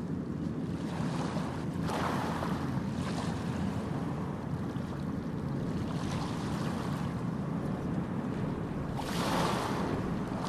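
Outdoor waterside ambience dominated by wind buffeting the microphone: a steady low rumble, with louder whooshes about two seconds in and again near the end.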